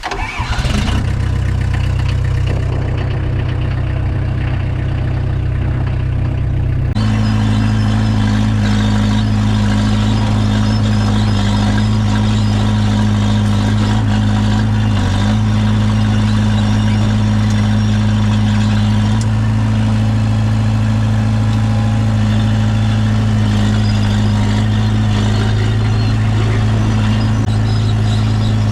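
Komatsu bulldozer's diesel engine starting right after a glow-plug preheat, then running steadily. About seven seconds in its note steps up and it settles into a steady run.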